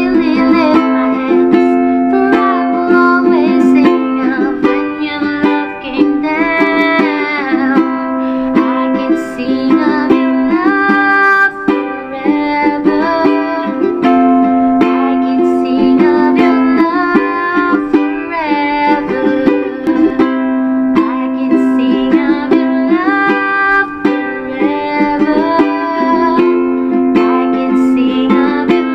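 All-mahogany D&D tenor ukulele being played: a continuous tune of plucked and strummed notes over a recurring held low note.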